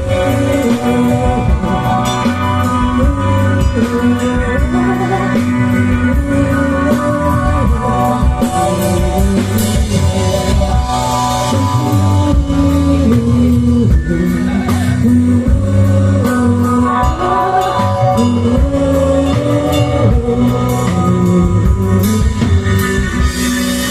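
Rock band playing live: electric guitars and drum kit with a singing voice over them.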